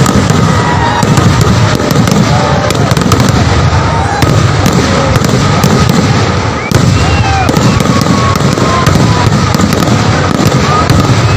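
Kerala temple-festival fireworks (vedikettu) going off in a dense, continuous barrage of rapid overlapping bangs and crackling with deep rumble. Thin whistling tones glide up and down through it.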